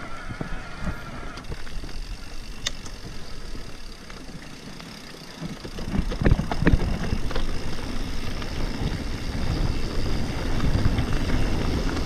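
E-mountain bike riding a dirt forest trail: tyre rolling noise and rattling, with wind buffeting the camera microphone. About six seconds in it gets louder, with a few sharp knocks as the bike goes over bumps.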